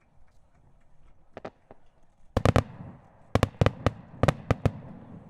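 Fireworks shells bursting: two faint bangs, then a rapid volley of about ten loud sharp bangs over two seconds, with a rumbling echo between them.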